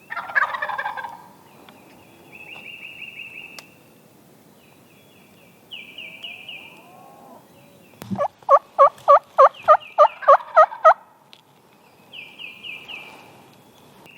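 A wild turkey gobbles, a rattling call about a second long, right at the start. About eight seconds in come a run of roughly nine loud turkey yelps, evenly spaced at about three a second. A small songbird's high, quick trill repeats several times in between.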